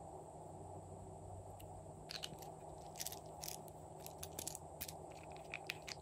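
Small plastic squeeze tubes of gel being handled and squeezed, giving a few scattered soft clicks and crackles over a faint steady background noise.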